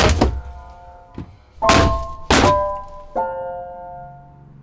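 Hammer blows breaking apart old wooden cabinet framing, several heavy thunks about a second apart, over background music with sustained keyboard notes.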